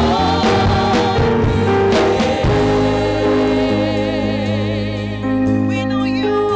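Gospel worship music: voices singing long, wavering notes over sustained low chords.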